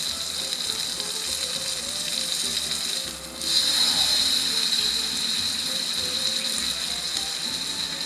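A thick wagyu New York strip steak sizzling in butter on a hot Blackstone flat-top griddle, a steady hiss. It dips briefly a little past three seconds in, then comes back louder.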